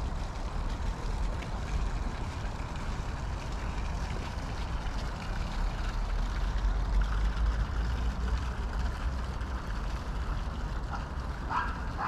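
Steady low outdoor rumble, like distant city traffic, with an even hiss over it. A short sharp call sounds near the end.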